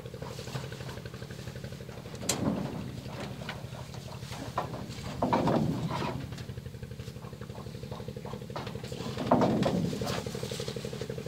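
A steady engine drone, with a louder surge about every three to four seconds.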